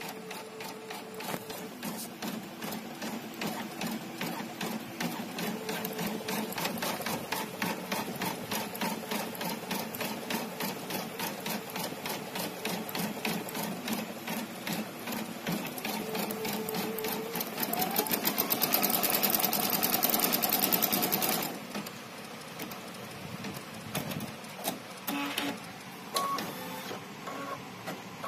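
Brother V3 embroidery machine stitching: a fast, even run of needle strokes that speeds up and gets louder about eighteen seconds in, then stops abruptly about three seconds later. Quieter scattered clicks and short tones follow.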